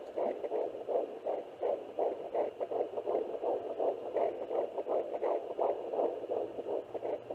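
Fetal heartbeat picked up by a handheld home fetal Doppler and played through its speaker as a fast, regular train of pulses, several to the second.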